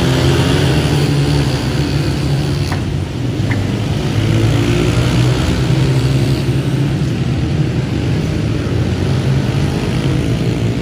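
Several Yamaha YZ125 two-stroke single-cylinder dirt bikes running together as they lap a flat track, their engines rising and falling in pitch as the riders accelerate and ease off for the turns.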